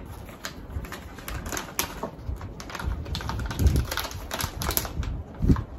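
Plastic pouch of dog food crinkling and crackling as it is handled, in quick irregular clicks, with a couple of dull low thuds partway through.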